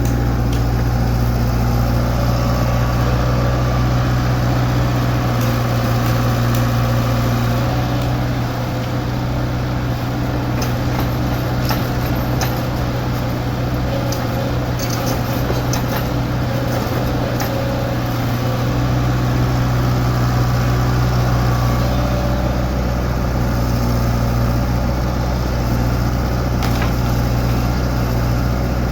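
Hydraulic excavator's diesel engine running steadily, with a low hum throughout. Scattered sharp clinks and knocks come in around the middle.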